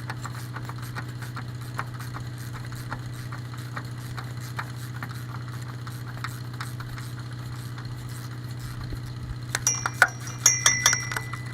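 Diesel tractor engine idling steadily with a low hum. Near the end, several sharp metallic clinks with a ringing tone, from wrenches knocking on metal.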